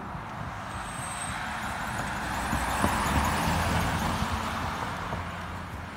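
Box ambulance driving past: engine rumble and tyre noise grow louder, peak about three seconds in as it goes by, then fade as it moves away.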